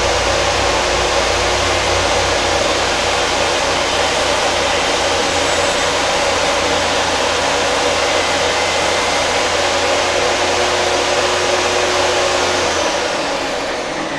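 Craftsman table saw running and cutting a groove along a runner blank pushed against the fence. About 13 seconds in it is switched off and its high whine falls away as the blade spins down.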